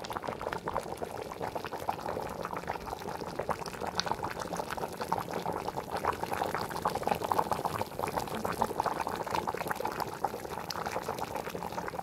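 Salt fish soup boiling hard in an aluminium pot: a steady bubbling made of many small pops and crackles.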